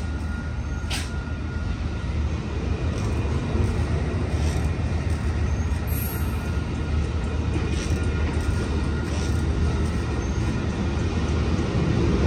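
Amtrak Superliner bilevel passenger cars rolling past close by: a steady low rumble of steel wheels on the rails, with a few faint clicks, growing slightly louder toward the end.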